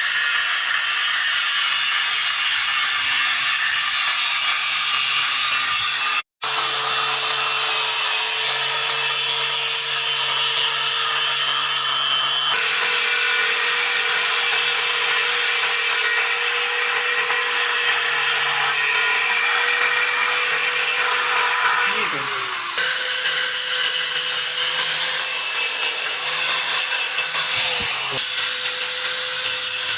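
Electric grinder running steadily with a steady motor hum and a harsh grinding hiss as it works the steel axe head. The sound stops dead once, and twice the motor's hum slides down in pitch as it spins down.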